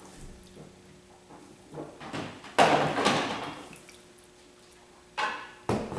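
Bottles and containers being handled and set down while oils are measured out: a loud clunk with a short rustle a little before halfway, and two shorter knocks near the end.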